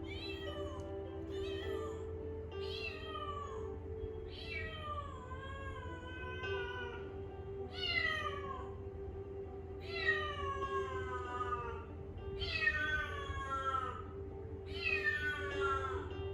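A kitten meowing over and over: about ten high calls, one every second or two, each sliding down in pitch, with background music underneath.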